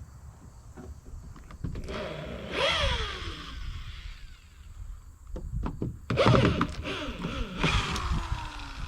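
Knocks and scrapes with squeaky creaks that glide in pitch, once about two and a half seconds in and again from about six to eight seconds. These come from old rough-cut wooden barn door boards and their hardware being handled and worked.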